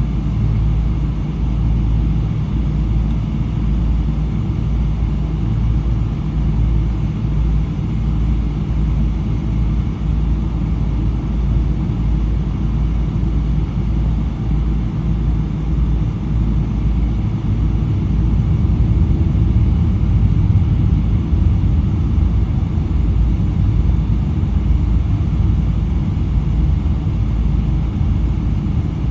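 Steady low rumble inside the cabin of a Boeing 777-300, from its Rolls-Royce Trent 800 engines and the airflow around the aircraft, swelling slightly about two-thirds of the way through.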